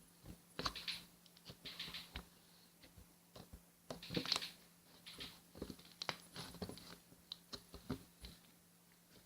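Irregular light taps and clicks with a few brief rustles, loudest about a second in and near the middle: small handling noises in a small room.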